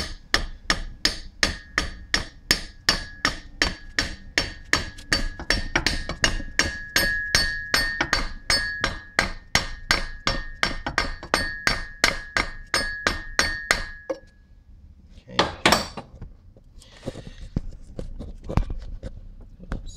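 A hammer tapping the A/C compressor clutch plate back onto the compressor shaft, about three blows a second with a steady metallic ring, to seat the plate after shims were removed to set the clutch gap. The tapping stops about 14 seconds in, and a few single knocks follow.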